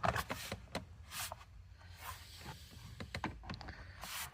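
Scattered light clicks and short rustles of hands handling parts inside a car, with a brief rustle near the start, one about a second in and another near the end.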